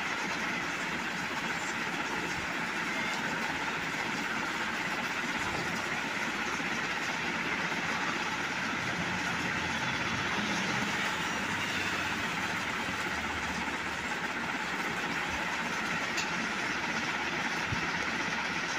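Steady, even background noise with no speech: a continuous hiss with a faint low rumble underneath, unchanging throughout.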